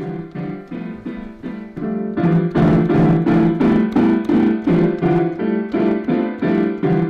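Piano keys struck in quick, evenly repeated chords, about three a second, getting louder about two seconds in: a child banging on the piano.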